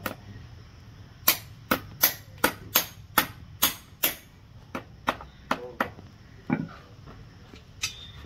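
A farrier's hammer driving shoeing nails through a horseshoe into a horse's hoof: a quick run of sharp metal taps, about eight loud strikes roughly every half second, then several lighter taps and a couple of single knocks near the end.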